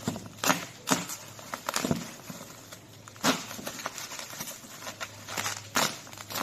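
Irregular knocks, clicks and light rustling of objects being handled, with about a dozen sharp sounds of uneven loudness; the loudest comes about three seconds in.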